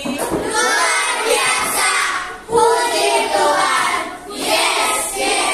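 A class of schoolchildren singing a song together, in three phrases with short breaks about two and a half and four seconds in.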